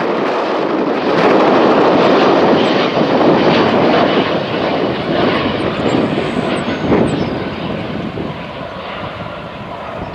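Jet engines of an Airbus A319 airliner on landing approach and touchdown: a loud, steady rush that fades over the last few seconds as the plane rolls away down the runway.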